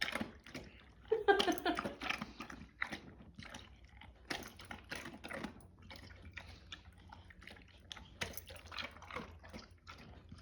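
Dog eating kibble soaked in water: irregular wet slurping, sloshing and chewing from the bowl, loudest about a second in. The owner calls it a weird sound, like a monster or zombie eating.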